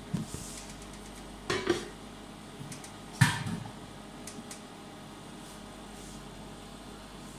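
Kitchenware clattering: a few short knocks and rattles, the loudest a little past three seconds in, over a steady low hum.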